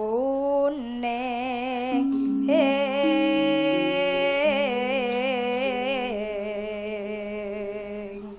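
A young sinden singing a Javanese vocal line solo into a microphone, holding long ornamented notes with a wide vibrato. A low, steady accompanying line steps from note to note beneath her voice.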